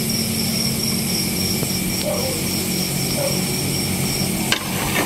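Steady hiss from a pan of pork adobo on a portable gas stove, with a light tap of the wooden spatula near the end. An insect chirps in a high, even pulse a few times a second throughout.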